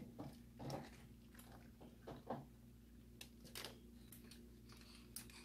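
Faint soft rustles and light taps of hands scooping grated mozzarella from a plastic chopper bowl and scattering it over the pizza, over a low steady hum.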